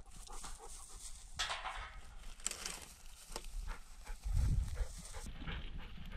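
Footsteps and rustling of a person walking through dry grass by a gravel road, with irregular small crunches and clicks. A low rumble rises a little after four seconds in.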